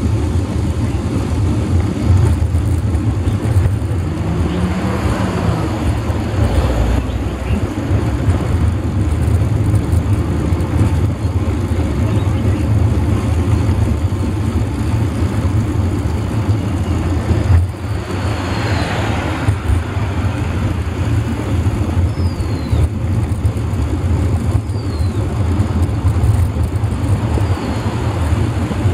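Steady low rumble of wind and road noise on a bicycle-mounted camera riding along a road, with motor traffic passing; one vehicle swells and fades about 18 seconds in.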